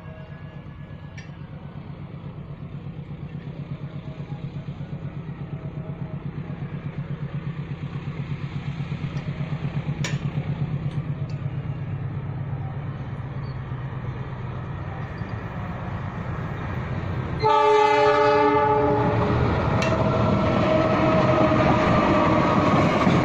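Diesel locomotive of a freight train approaching with a low, pulsing engine rumble that grows steadily louder. About three-quarters of the way through, a loud horn blast lasts about two seconds. The train then passes close by, loud, with wheel and car noise.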